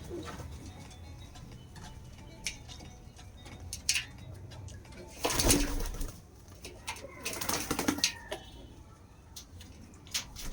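Pigeons cooing, with scattered clicks and two louder noisy bursts of wing flapping about halfway through.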